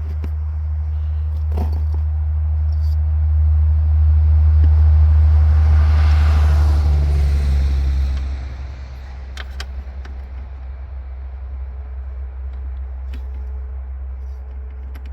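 Low rumble of a passing road vehicle that builds, peaks in the middle, and falls away sharply about eight seconds in, with a few sharp clicks.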